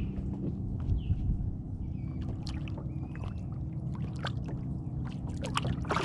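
Water sloshing around a small boat, over a steady low hum, with scattered small clicks and splashes that come thicker near the end.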